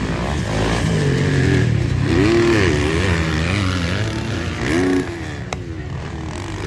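Motocross dirt-bike engines racing on the track, the throttle opening and closing so the pitch rises and falls over and over through the jumps and turns. Loudest about two seconds in and again just before five seconds in.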